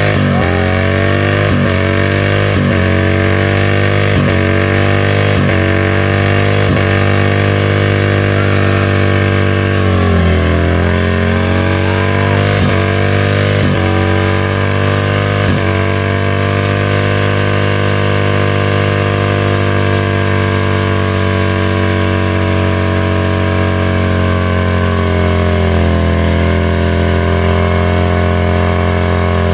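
Harley-Davidson V-twin engine held at high revs during a rear-tire burnout, its revs dipping and climbing back about once a second for the first fifteen seconds or so, then held steady.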